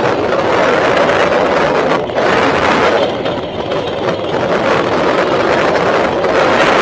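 A mini bike's small engine running under way on a gravel trail, with wind buffeting the microphone throughout.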